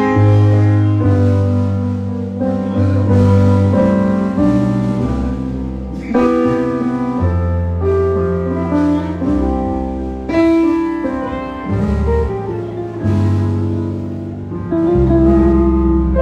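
Piano-voiced keyboard playing held chords over low bass notes, the chords changing every second or two, during a band's stage soundcheck.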